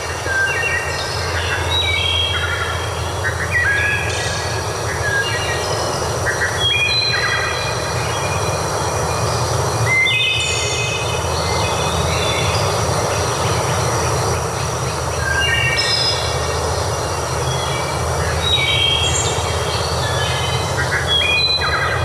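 Birds calling, many short, clear, flat-pitched notes overlapping several times a second, over a steady rushing noise and low rumble.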